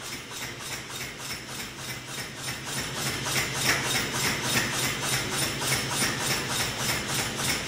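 Massey self-contained pneumatic power hammer idling with no work on the anvil: its motor and air compressor run with a fast, even pulse over a steady low hum, growing slightly louder about three seconds in.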